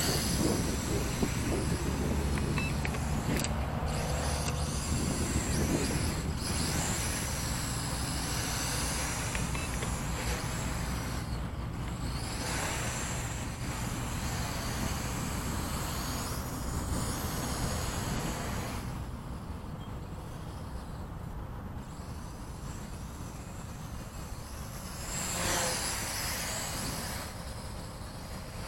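Wind buffeting the microphone, mixed with the buzz of the NIHUI U807 quadcopter's motors and propellers. The sound is loudest while the quadcopter is close overhead early on, fades as it flies farther off, and swells briefly again near the end.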